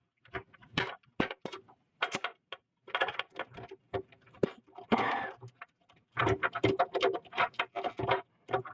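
Rapid irregular clicks, knocks and brief scrapes of small hard objects being handled and rummaged through while searching for a missing part.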